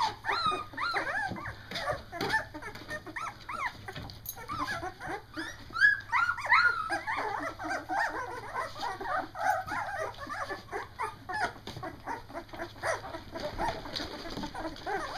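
A litter of two-week-old Doberman puppies whimpering and squealing: many short, high, overlapping calls, with one louder cry about six seconds in.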